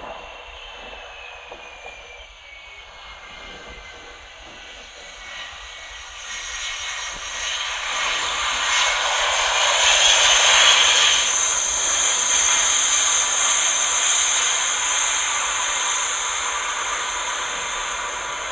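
Asiana Airlines Airbus A330-300 jet airliner landing: a faint engine whine falls slowly in pitch, then the jet noise builds into a loud rushing hiss that is loudest about ten seconds in as the plane rolls past on the runway. It eases slightly as the plane moves away.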